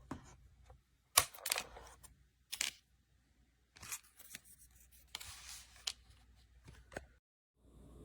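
Label maker and label tape being handled: a series of sharp plastic clicks and short tearing or rustling scrapes. The loudest is a sharp click about a second in, and there is a longer scrape about five seconds in.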